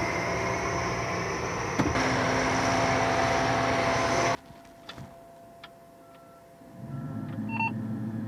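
Steady machine engine noise with a sharp click about two seconds in, cut off abruptly a little past the middle. A quiet stretch follows with a few short electronic beeps, and a low hum comes up near the end.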